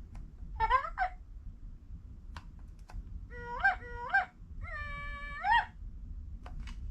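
VTech Swipe & Discover toy phone playing animal-call sound effects through its small speaker. A short rising call comes about half a second in, two calls a few seconds in, then one longer held call that rises at its end, with faint clicks between them.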